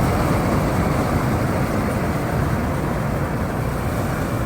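Combine harvester running steadily while cutting paddy: a dense, even engine and machinery noise that eases slightly in level.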